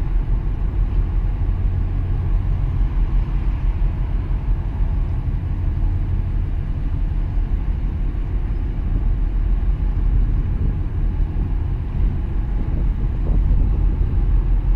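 Wind buffeting the microphone: a steady low rumble that flickers up and down in level.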